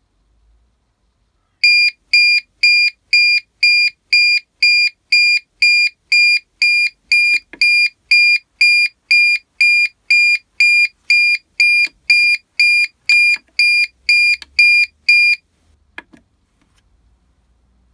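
Kronings Tri-gas alarm NS mini sounding its alarm: loud high-pitched electronic beeps, about two a second, for some fourteen seconds, then stopping. The beeping shows the detector has been set off by the test spray.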